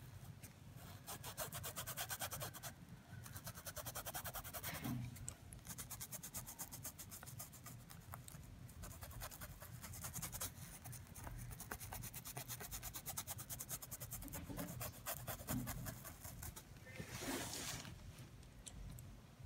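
Flat paintbrush scrubbing over cotton fabric stretched taut in a wooden embroidery hoop, in faint, rapid rubbing strokes with short pauses: paint being blended in to deepen the shading.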